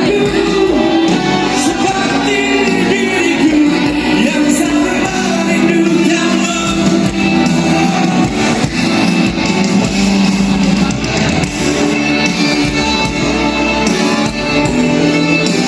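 Live band music with a singer, played at a steady loud level without a break.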